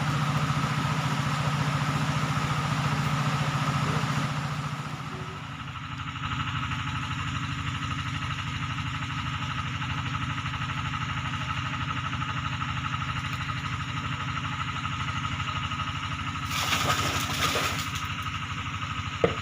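A small engine running steadily, its even hum changing pitch slightly about five seconds in. A brief rush of noise comes about three-quarters of the way through.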